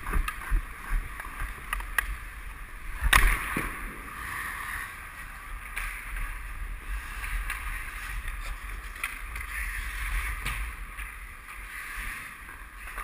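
Ice skate blades scraping and carving on rink ice, with scattered clacks of hockey sticks and puck and a sharper knock about three seconds in, over a low rumble.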